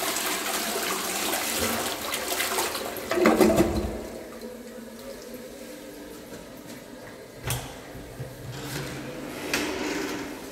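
INAX 306 one-piece toilet flushing: a loud rush of water for about four seconds, settling into a quieter hiss of water as it refills. Two short knocks come near the end.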